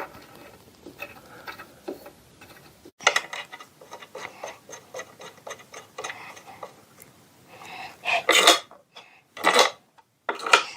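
Metal hardware being handled and fitted: small clicks and taps of washers, nuts and threaded rod. These grow into busier clinking, then several louder clanks and scrapes near the end.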